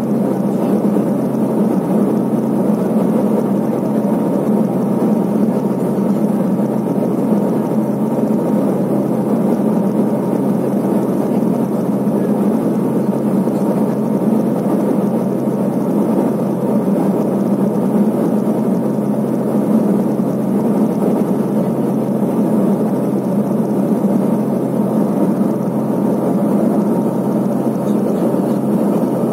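Steady drone of the Let L-410 UVP-E20's turboprop engines and propellers heard inside the passenger cabin: an unbroken hum with a strong low tone and a dense rushing noise over it.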